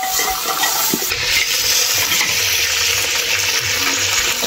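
Spiced pieces of buffalo leg frying in an open aluminium pressure cooker: a loud, steady sizzle that swells about a second in, with a few scrapes and clicks of the stirring spoon at first.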